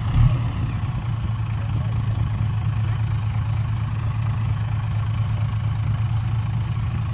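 Heavy diesel engine of earthmoving equipment idling with a steady low hum, with a brief louder bump just at the start.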